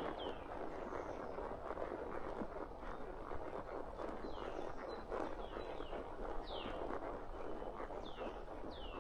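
A horse walking, its hooves making a steady dense crackle of steps, while a bird repeatedly gives short high calls that sweep downward in pitch.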